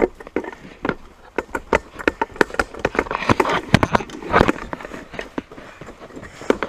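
Footsteps climbing an old wooden staircase: a run of irregular knocks and scuffs, busiest about three to four seconds in.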